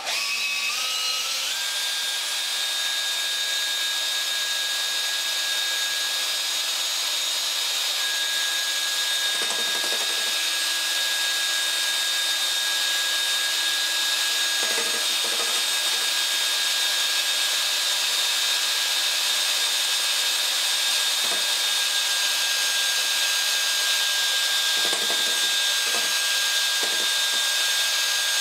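Variable-speed electric drill spinning a stainless steel Cyklone paddle mixer in a tin of separated paint. The motor winds up over the first second or two, then runs at a steady whine, with a few short low rumbles from the paddle churning in the tin.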